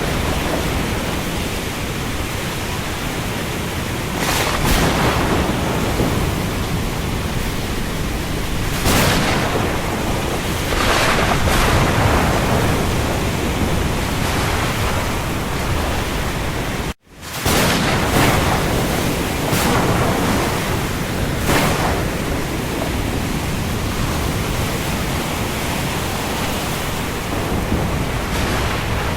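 Steady heavy rain falling on the open sea, a dense hiss that swells in louder surges every few seconds. About 17 seconds in it cuts out to silence for an instant, then comes straight back.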